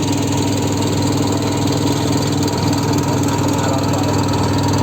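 An engine running loudly and steadily at a constant speed, with an even, rapid pulse.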